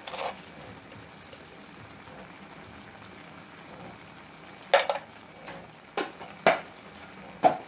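Chicken and tofu simmering in sauce in a nonstick frying pan, a faint steady sizzle. In the second half a utensil knocks sharply about five times as salt is added.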